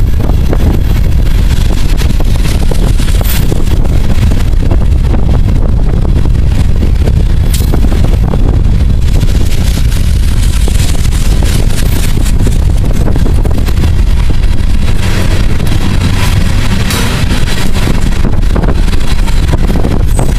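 Loaded coal cars rolling steadily past close by: a loud, continuous rumble of steel wheels on rail, with occasional sharp clicks and clanks. Wind buffets the microphone.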